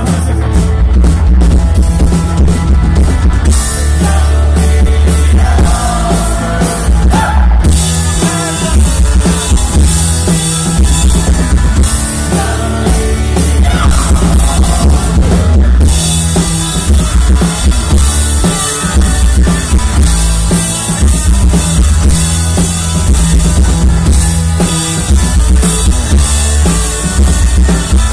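Live rock band playing loudly: electric guitar, bass guitar and drum kit, with the cymbals coming in harder about eight seconds in.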